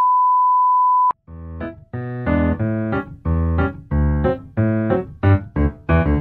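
A loud steady beep lasting about a second, then a short keyboard-sounding music jingle of separate plucked-like notes that come quicker toward the end.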